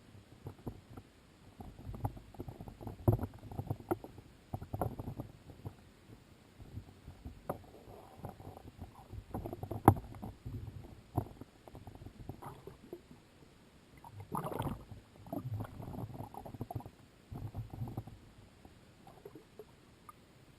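Muffled underwater sounds of a spearfisher swimming: water churning and bubbling in irregular bursts, with a few sharp knocks, the loudest about three and ten seconds in.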